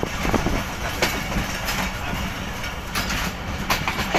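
Passenger train coaches running over rail joints, heard from on board at an open window: a steady low rumble with sharp wheel clicks about a second apart.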